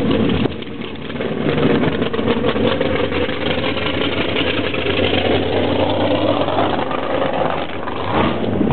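1000-horsepower mud buggy engine running loud at low speed, dipping briefly about half a second in and then building back up.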